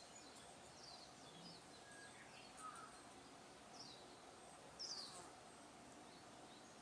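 Faint outdoor background with a few short, high, falling bird chirps, the clearest about five seconds in.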